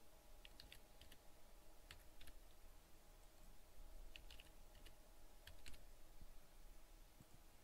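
Faint computer keyboard keystrokes and clicks in a few short groups, over a steady faint hum.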